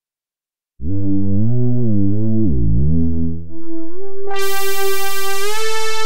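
reFX Nexus 4 'Sub Pad' synth pad preset being auditioned. After a short silence, a deep, rich note wavers up and down in pitch. Then a higher, brighter note slides upward and swells with a bright layer on top.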